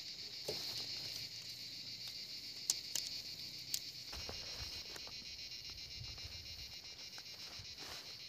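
Steady high-pitched buzzing chorus of forest insects, crickets or cicadas, with a few light clicks, the sharpest about three seconds in and just under four seconds in.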